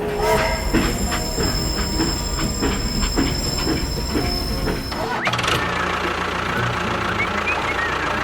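Machine running noise with two steady high-pitched whines and a rhythmic knocking, about two knocks a second. About five seconds in it cuts to a steadier lower hum with wavering chirps over it.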